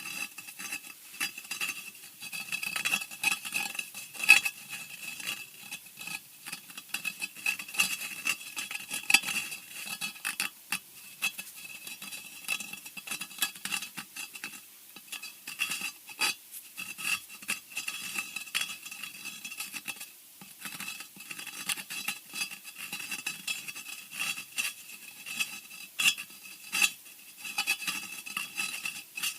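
Scratching sound effect for horror: continuous, irregular scratching and scraping in quick uneven strokes, with a steady high ringing tone underneath.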